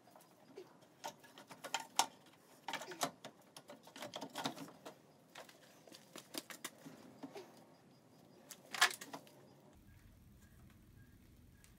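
Irregular clicks, knocks and light rattles of hand tools and parts being worked in a Mazda RX-8's engine bay as the upper intake manifold is loosened, with one sharper clack about three-quarters of the way through.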